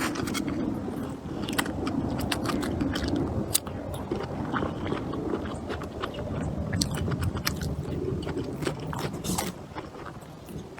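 A person chewing and biting food, with many short, irregular clicks and scrapes.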